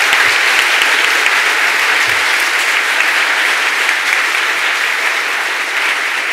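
Large audience applauding steadily, easing off slightly near the end.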